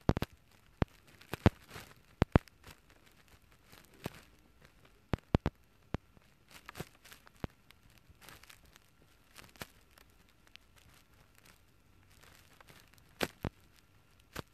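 Irregular sharp clicks and knocks, several in quick pairs, with soft rustling between them.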